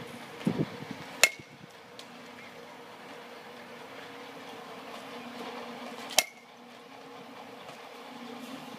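Two sharp hits of a bat on a baseball, each with a short ring, about five seconds apart, over a steady low hum.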